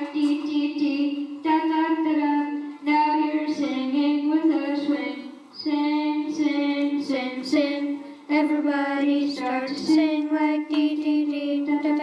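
A solo voice singing a song in phrases of long held, fairly high notes, with short breaks between phrases.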